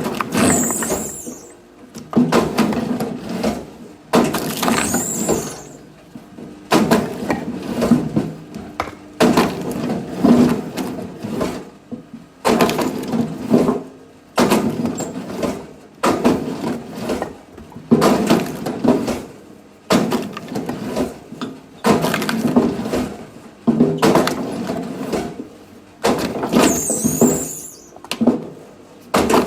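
Axe blows on firewood, a sharp strike about every two seconds, each followed by a rasping crack of wood that fades out, some of them with a squeaky splintering sound.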